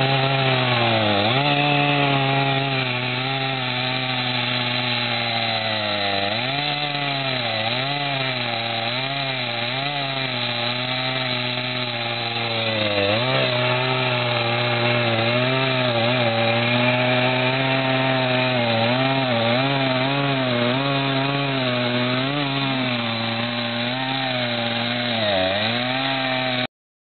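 Chainsaw running at speed while cutting through logs, its engine pitch sagging repeatedly as the chain bites into the wood and then climbing back. It cuts off abruptly near the end.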